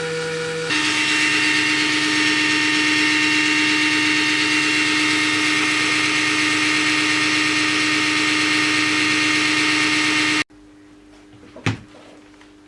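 Bare 18-volt cordless-drill motor whirring steadily on a bench power supply that is current-limiting at about 2.9 A, so it cannot reach full speed. Its pitch drops and it gets louder under a second in, then the sound cuts off suddenly, followed by a faint hum and a single knock.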